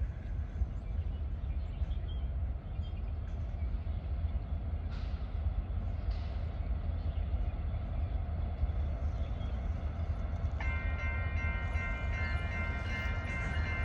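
A train rumbling steadily along the track, with a locomotive's multi-note horn sounding about ten and a half seconds in and held.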